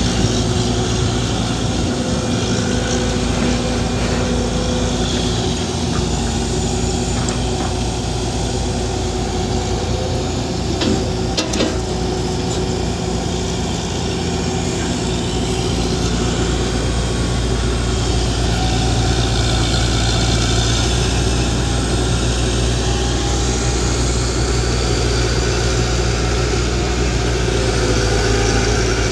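Heavy diesel engines of concrete mixer trucks and excavators running steadily at idle, with a couple of sharp clicks about eleven seconds in.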